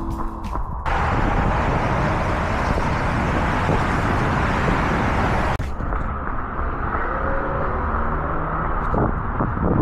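Steady rushing of multi-lane highway traffic passing below. About halfway through it cuts abruptly to the duller, lower hum of street traffic at a town intersection.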